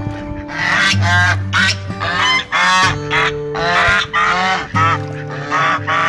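Domestic geese honking loudly in several bursts of rapid calls.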